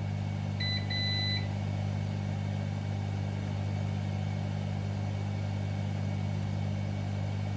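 A multimeter's continuity beeper gives two short high beeps in quick succession about half a second in, as the probes across a MOSFET find a short. This marks that MOSFET on the damaged ESC motor phase as dead. Under it is a steady low hum.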